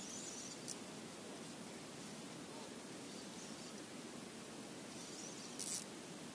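Faint steady outdoor background of wind and water with faint high chirping, a short click about a second in and a brief rasping noise near the end.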